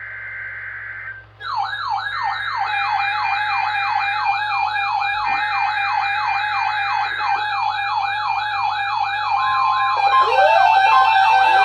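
Emergency Alert System Required Weekly Test on NOAA Weather Radio: SAME header data bursts, screechy digital tones about a second long, end one and two more follow with short gaps. From about a second and a half in, an electronic wailing siren sweeps up and down about three times a second over them. Near the end, further sweeping siren tones and an on-off beep join in.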